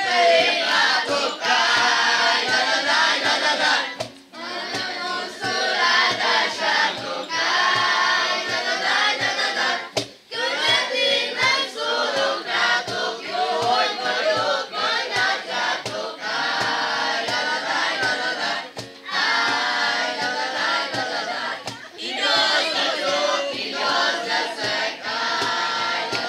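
A mixed group of young voices singing a song together, with acoustic guitar and a steady low beat from a cajón underneath. The singing breaks off briefly between phrases a few times.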